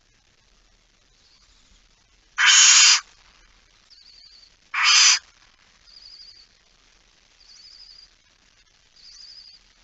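Barn owls in a nest box: two loud, harsh rasping hisses about two and a half seconds apart, with soft, high, wavering twitters in between and after.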